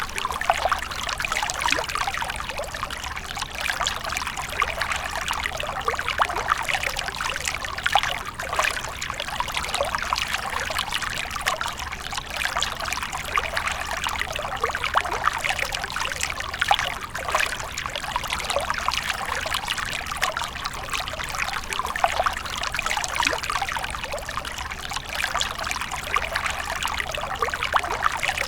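Water from a fountain splashing and trickling steadily.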